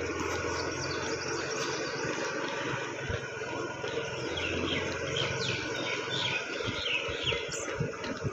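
Steady rumbling wind and road noise from a camera moving alongside runners, with a bird's quick run of high chirps about four to five seconds in.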